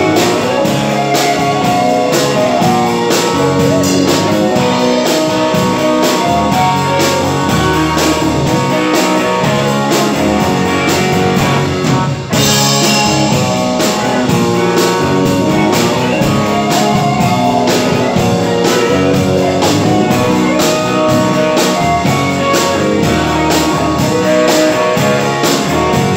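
Live band playing: electric guitars over a drum kit keeping a steady beat. About twelve seconds in the band breaks off briefly and comes back in on a cymbal crash.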